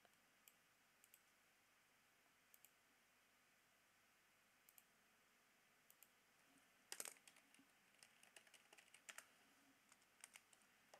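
Near silence broken by faint, scattered clicks from someone working a computer. The clicks come thicker from about seven seconds in, the loudest a quick pair near seven seconds.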